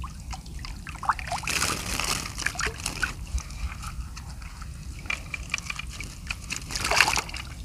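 Seawater sloshing and splashing irregularly, with many small splashes and drips, heaviest about two seconds in and again near the end.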